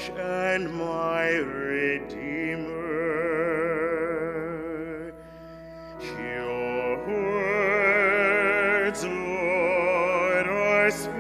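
A solo church singer singing a slow melody with strong vibrato over steady held accompaniment chords, most likely the sung psalm response at Mass. There is a short break between phrases about five seconds in.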